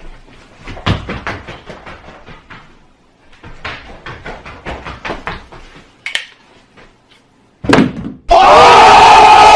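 Two runs of quick, irregular knocks and thumps, several a second, with a short pause between them. Then a brief loud burst, and loud music starts near the end.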